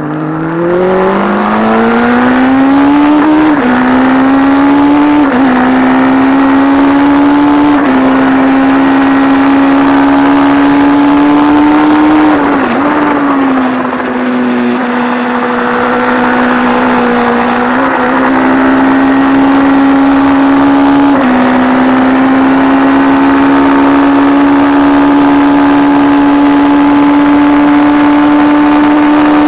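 1170 cc P&M Kawasaki inline-four racing motorcycle engine, heard from on board, accelerating hard out of a corner with a rising note and several quick gear changes in the first eight seconds. Revs dip briefly about twelve seconds in, then the engine pulls steadily at high revs, around 10,000 rpm.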